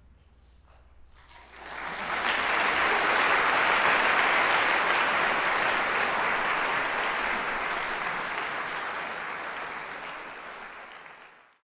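Audience applauding: the clapping starts up about a second and a half in, holds strong, then slowly thins and fades out, cutting off just before the end.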